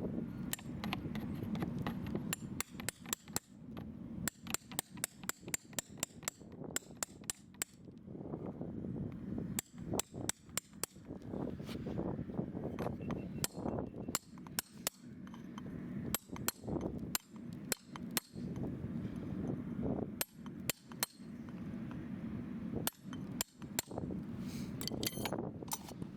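A farrier's hand tools working a horse's hoof: repeated sharp clicks and knocks, often in quick runs of several a second, over a steady low hum.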